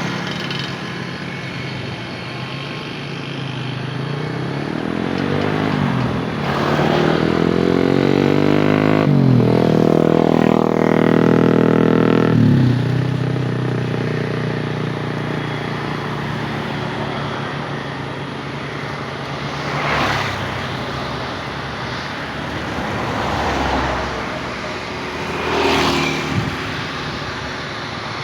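Motor vehicles passing close by over a steady engine drone. In the middle one engine's pitch rises and then falls as it goes past, the loudest part. Shorter passes swell up near 20 seconds and again near 26 seconds.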